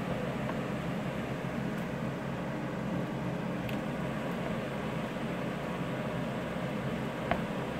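Steady background hum and hiss, with a faint short tap near the end.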